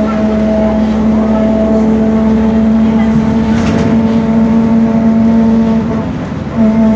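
Noisy rear differential of a BMC Belde 285CB city bus whining under way, heard inside the cabin: a steady whine at one pitch with several overtones, fading about six seconds in and coming back loudly just before the end.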